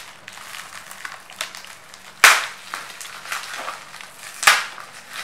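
Plastic bubble wrap crinkling as it is torn open at the mouth, with two sharp pops of bursting bubbles, about two seconds in and again near the end.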